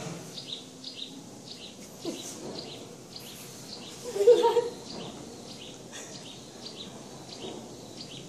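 A bird calling in short, high, repeated chirps, about two a second. About four seconds in there is one brief, louder, voice-like sound.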